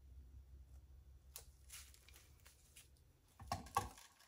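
Quiet handling noise from a thin tool being worked through wet acrylic paint: faint scattered clicks over a low steady hum, then two louder knocks near the end.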